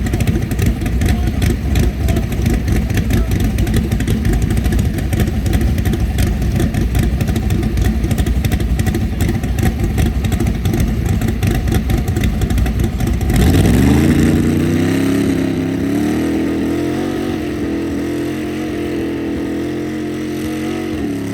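Naturally aspirated Mustang engine rumbling roughly at low revs, then revved up about thirteen seconds in and held at high rpm, easing slightly down.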